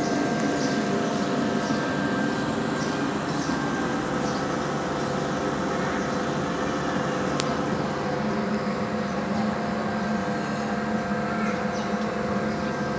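Homemade evaporative air cooler running: a steady electric fan hum with an even rush of moving air.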